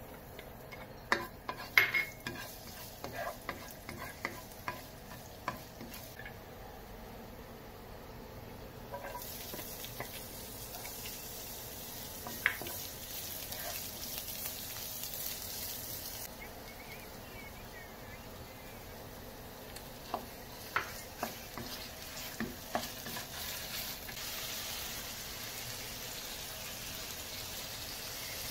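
Chopped garlic and onion, then ground meat, frying in oil in a nonstick pan, with a steady sizzle and the clicks and scrapes of a spatula stirring against the pan. The sizzle grows louder about a third of the way in.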